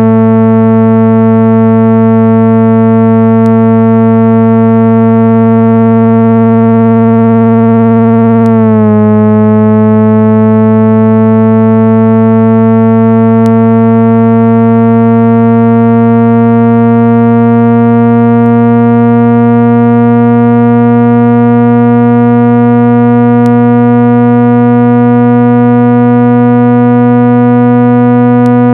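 Loud, steady synthesized low tone with a buzzy stack of overtones: a speaker-cleaning signal sold as 165 Hz, played to vibrate dust out of a phone speaker. About nine seconds in it breaks briefly, and its upper overtones drop a little and then slowly rise.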